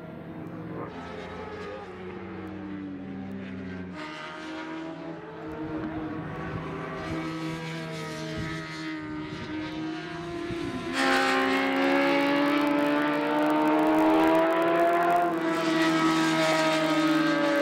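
Superbike racing motorcycle engines at full throttle, several at once, their pitch rising and falling as the riders shift gears and brake for corners. They get louder about 11 seconds in as the bikes come close.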